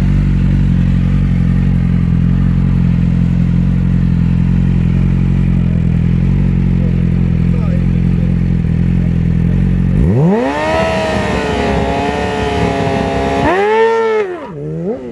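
Yamaha sportbike engine running steadily at low revs, then revving sharply about ten seconds in as the bike launches. The revs hold high, then dip and climb again twice near the end as it pulls away.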